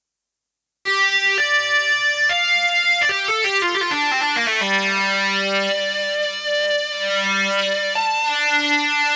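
Korg microSTATION synthesizer keyboard being played through its speakers, starting about a second in. It plays held notes, a quick run of short notes in the middle, then long sustained notes.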